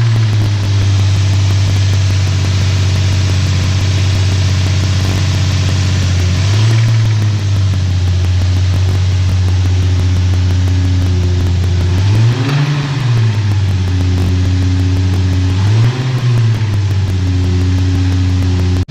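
2008 Nissan 350Z's V6 engine running steadily, revved briefly about four times. The knock in it is taken by the mechanics for a rod knock.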